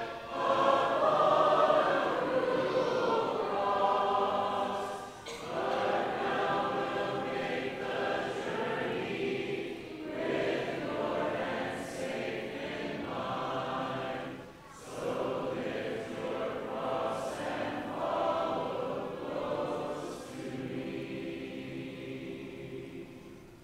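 Congregation singing a verse of a hymn in unison and parts without instruments, in phrases with short breath pauses between them. The singing fades away near the end.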